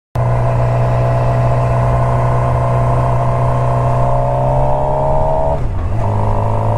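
Suzuki GSX-R motorcycle's inline-four engine running under way, heard from a microphone inside the rider's helmet. Its pitch climbs slowly, dips briefly about five and a half seconds in, then holds steady.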